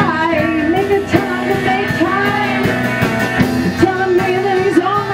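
A woman singing live into a microphone with a rock-and-roll band behind her: guitar and a steady beat.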